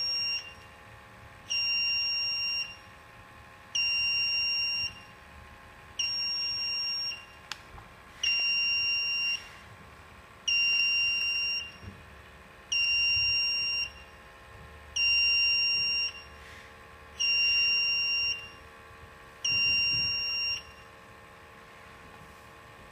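Handheld formaldehyde detector's buzzer sounding its alarm for a reading above 0.1 mg/m³: a high electronic beep about a second long, repeated about every two seconds, stopping near the end. A faint steady hum runs underneath.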